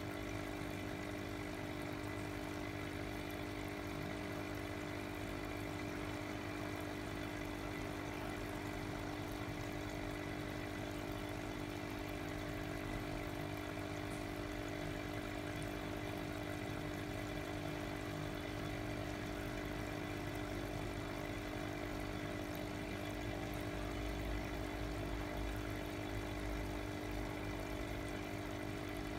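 Small aquarium pump humming steadily, with water bubbling in the fish bowl from its tube.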